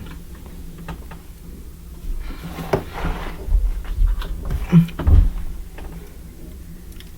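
Handling noise from a plastic model kit being fiddled with: light plastic clicks and rustles, with a cluster of dull knocks against a surface between about two and five seconds in.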